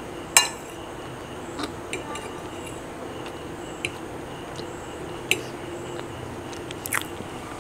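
Metal fork clinking against a plate while cutting into a cinnamon roll: a handful of short sharp clinks, the loudest about half a second in.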